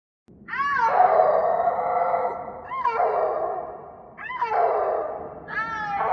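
A wild cat calling over and over: four yowling cries about every one and a half seconds, each opening with a quick rising-and-falling note and trailing off into a long drawn-out wail.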